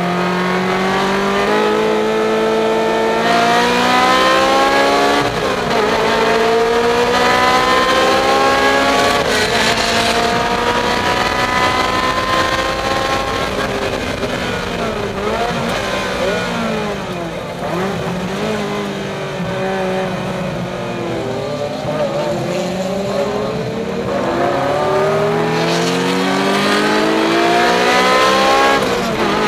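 Ferrari Challenge race car's V8 heard from inside the cockpit, accelerating hard through the gears with quick upshifts early on. It then runs at lower, changing revs through a slower section before pulling up through the gears again near the end.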